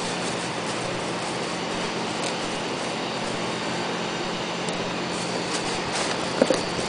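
Steady workshop background hum and hiss, with faint rustling and clicks of packaging as a new pump mechanical seal is unwrapped from its plastic wrap and box. A sharper knock comes about six and a half seconds in.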